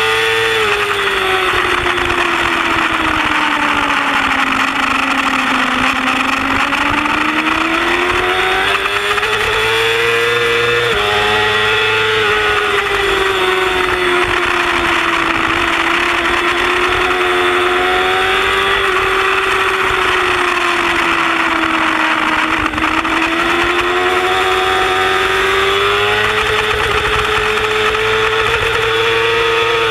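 Yamaha YZF-R6 inline-four sport bike engine running at high revs, heard from onboard under heavy wind rush. Its pitch sags and climbs again several times as the bike goes through corners and onto straights, with a sudden step in pitch about eleven seconds in.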